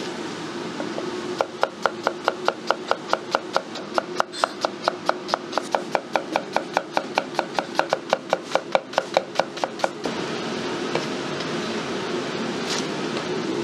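Chinese cleaver slicing onion on a round wooden chopping block: a fast, even run of chops, about four or five a second for some eight seconds, which then stops. A steady background hum runs underneath.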